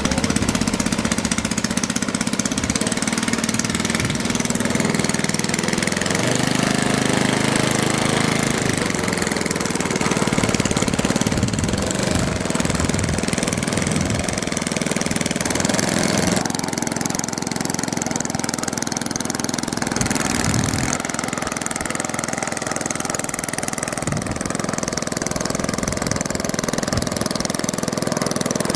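Moki 50VT engine of a quarter-scale B.A. Swallow radio-controlled model plane running at low throttle as the plane taxis, its note changing a few times.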